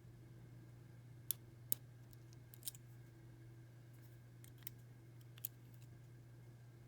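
Lock pick and tension tool clicking against the pins inside a six-pin First Watch padlock: a handful of faint, separate sharp clicks, the two loudest in the first two seconds, the rest spaced irregularly.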